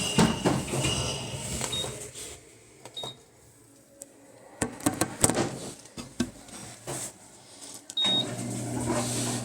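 Washing machine being operated: a steady low hum dies away, then come scattered clicks and knocks and three short high beeps like control-panel button presses. About eight seconds in, the machine starts again with a steady low hum.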